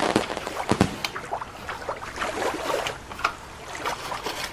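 Sand scraped and shuffled by a plastic toy lobster's claws, in irregular short scrapes, with a sharper knock just under a second in.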